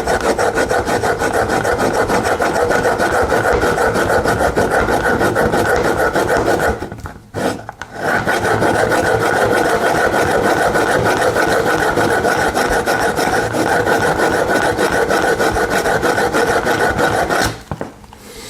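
Pocket knife blade being pulled rapidly and repeatedly through a dry handheld knife sharpener, a steady fast scraping of steel against the abrasive. There is a brief pause about seven seconds in, and the scraping stops shortly before the end.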